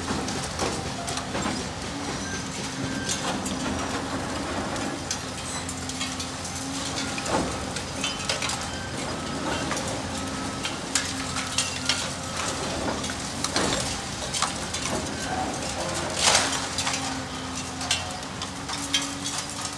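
High-reach demolition excavator running with a steady engine hum while its attachment breaks into a brick wall; bricks and debris clatter down in scattered cracks and knocks, the loudest crash about sixteen seconds in.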